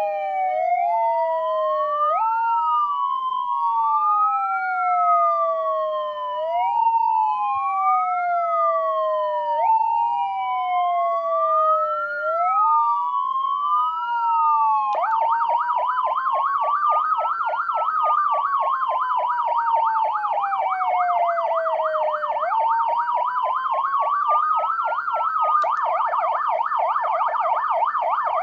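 YL-216T20 dual-channel electronic siren sounding two tones at once. First come two overlapping wails, each rising quickly and falling slowly. About halfway through, one channel switches to a rapid warble while the other keeps wailing, and near the end both channels warble rapidly.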